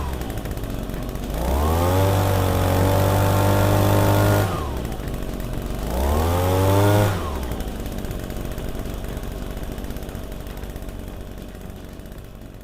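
Ryobi engine blower running after its repair: revved up twice, the pitch rising and holding for a few seconds before falling back to idle, then fading out near the end.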